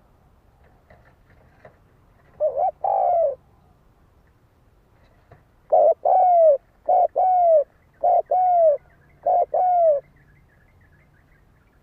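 Spotted dove cooing. A short pair of arching coo notes comes about 2.5 s in, and a longer rhythmic series of coos runs from about 6 to 10 s. It is the male's territorial challenge call, used to provoke rival birds.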